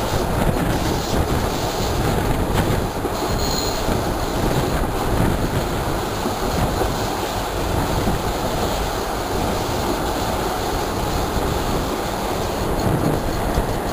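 Passenger train running along the track, heard from an open coach window: a steady rumble of wheels on rail with rushing air. A short, faint high squeal comes about three and a half seconds in.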